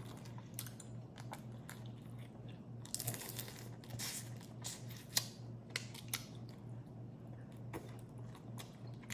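Close-up eating of boiled crawfish: chewing with scattered sharp clicks and cracks, busiest around three to four seconds in. A low steady hum runs underneath.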